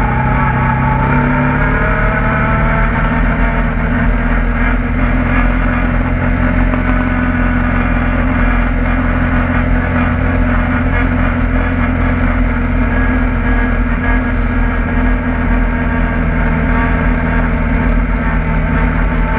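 Engine of a small off-road vehicle running along a dirt track: its pitch drops early as it slows, holds steady for most of the ride, then climbs again near the end as it speeds up.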